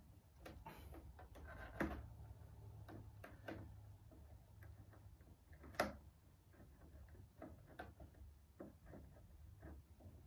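Faint, irregular clicks and taps of a hand tool working a tank-bracket bolt loose on a motorcycle, with two sharper knocks about two seconds and six seconds in, over a low steady hum.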